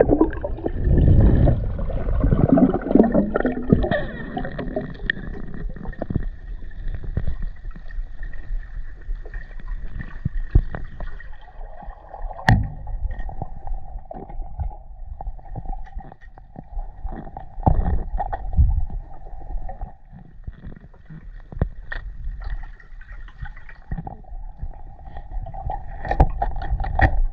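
Muffled water sounds during spearfishing: gurgling and sloshing with many scattered clicks and knocks, louder at the start and again about two-thirds of the way in, over a faint steady hum.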